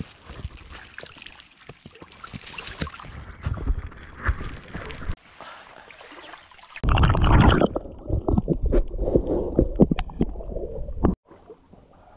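Shallow creek water sloshing and splashing around wading legs, with scattered small clicks, mixed with rumbling wind and rubbing noise on the microphone that is loudest in the second half. The sound breaks off abruptly twice.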